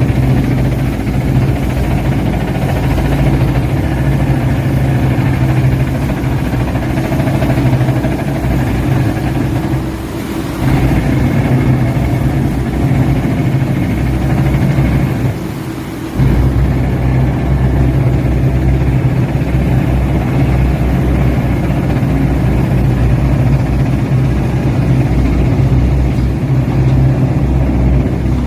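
Percussion rotary drilling (PRD) piling rig running steadily under heavy engine noise. It eases off briefly twice, about ten seconds in and again around sixteen seconds.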